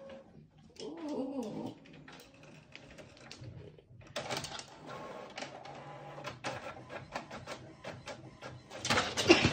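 A home printer running, clicking and whirring as it feeds and prints a page, much louder near the end. About a second in, the dog gives a short wavering cry.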